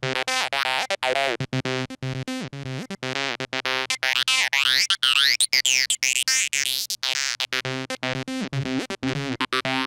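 u-he Zebra 2 software synthesizer playing the HS Acidophilus+ patch, a fast run of short repeating notes. Its Filter 1 cutoff and resonance are being swept by hand on an XY controller, so the tone brightens and dulls, with resonant sweeps gliding up and down around the middle.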